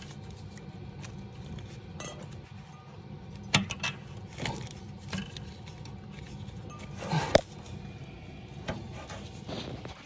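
A few sharp metallic clicks and clinks of a thermistor spring clip being worked back onto a copper pipe, the loudest about seven seconds in, over a steady low hum.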